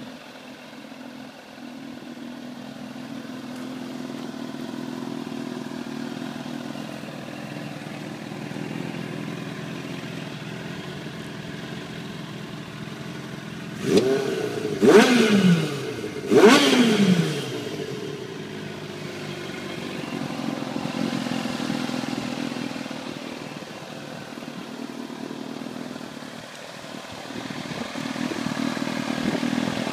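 Kawasaki ZX-6R inline-four motorcycle engine in a go-kart running, its sound swelling and fading gently. About halfway through it revs hard three times in quick succession, each rev climbing fast and falling back more slowly.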